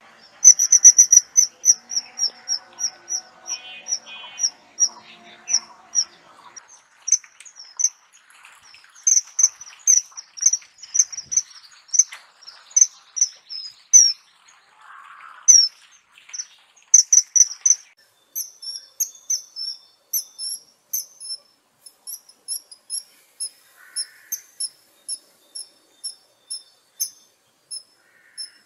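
Kingfisher calling: a fast series of short, high, sharp notes in loud bursts, settling after about 18 seconds into an even run of about two to three notes a second.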